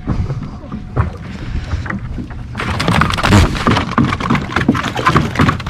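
Small boat on open water: water slapping the hull with scattered knocks, and wind on the microphone. The noise grows much louder and denser about two and a half seconds in.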